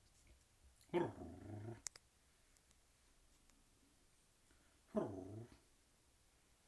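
A dog gives two short, growly vocalisations about four seconds apart. Each starts sharply and drops in pitch; the first lasts nearly a second and is followed by a brief click.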